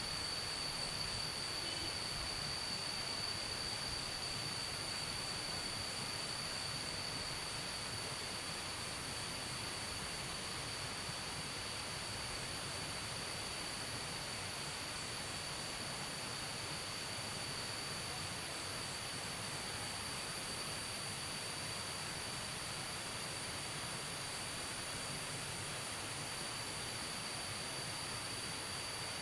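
Insects calling at dusk: one steady, high-pitched unbroken trill, with a higher, finely pulsing buzz above it over a soft hiss.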